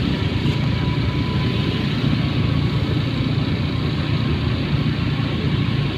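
Steady low rumble of motorcycle engines at a busy roadside street market, even in level throughout.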